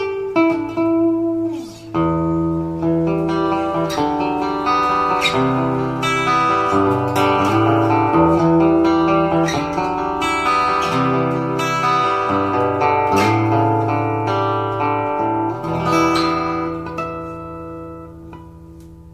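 Harley Benton Ovation-style roundback acoustic guitar being played: chords over a moving bass line. The last chord rings out and fades near the end. The guitar has just been refretted and fitted with a bone nut and saddle.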